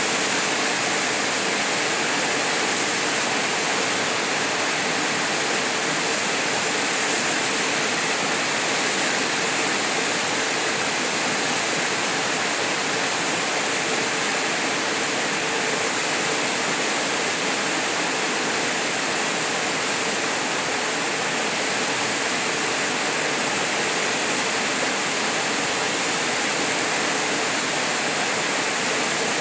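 Steady, unbroken rush of a small waterfall plunging into a rock pool.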